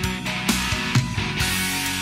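Rock music played by a band, with guitar and drum hits.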